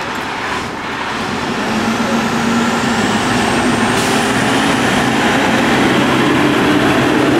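Fire department aerial ladder truck's diesel engine pulling away at low speed, growing louder as the truck comes up and passes close by.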